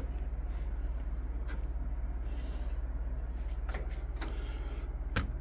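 A few light clicks and taps from handling the Triton key machine's jaw and spindle, the sharpest near the end, over a steady low hum.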